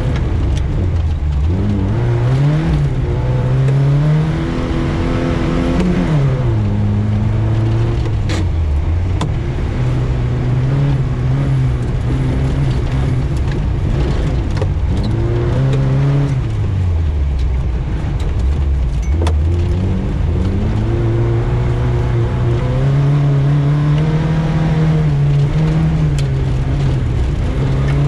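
Vaz 2105's four-cylinder engine under hard driving, its pitch climbing under acceleration and dropping back again and again as it shifts gears and lifts off, over steady tyre and road noise.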